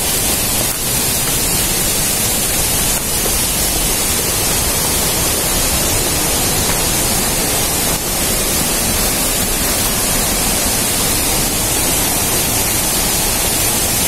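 Waterfall and river water rushing steadily: a loud, even hiss with no breaks.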